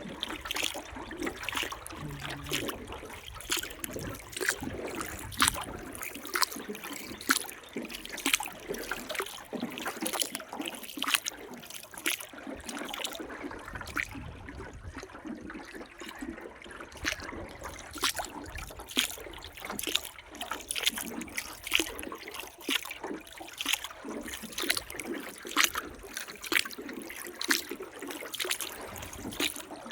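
Water splashing and trickling around a small boat, with many short, sharp, irregular splashes over a steady wash.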